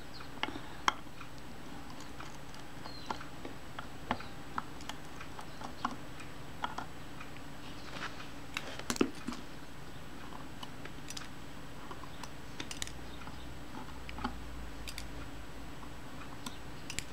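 Irregular faint clicks and small metallic taps of a small screwdriver and tiny screws as the countersunk screws are worked out of a Kodak Retina I's front standard, over a faint steady hum.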